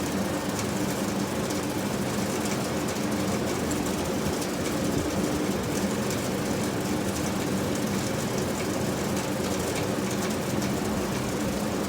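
Steady mechanical hum with a low, even drone, like an engine idling.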